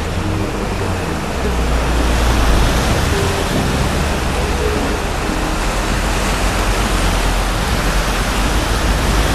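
Loud, steady rushing of storm floodwater, with a deep rumble underneath that swells a little about a second and a half in.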